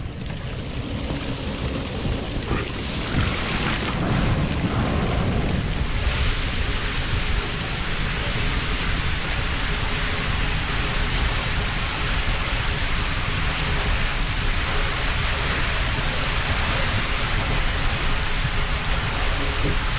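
Steady rushing roar of water and air while sliding down a waterslide, growing fuller a few seconds in.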